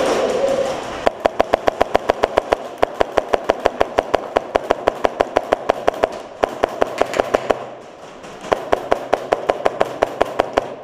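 Airsoft gun firing on full auto: rapid, even strings of sharp shots in three long bursts with short pauses between them, after a loud rushing noise in the first second.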